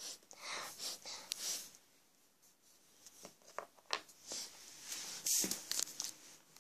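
Rustling and light clicks of small plastic toys being handled, in scattered short bursts with a few sharper taps between about three and six seconds in.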